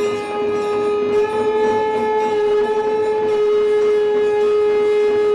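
Conch shell (shankh) blown in one long, steady note that rises slightly in pitch about a second in.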